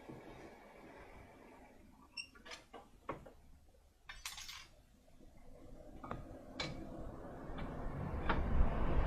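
Scattered metallic clinks and knocks of a car's brake caliper and hand tools being handled while the caliper is refitted over the disc, with a rushing noise building near the end.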